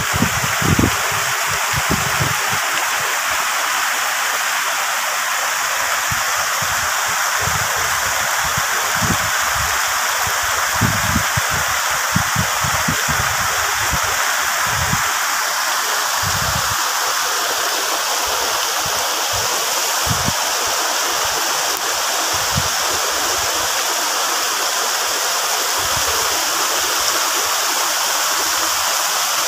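Rain falling steadily on banana leaves and other vegetation: a dense, even hiss, with occasional soft low thuds scattered through it.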